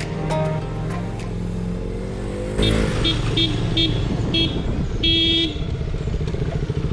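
A vehicle horn gives four short toots and then one longer honk over a motorcycle engine running steadily. The tail of background music fades out first.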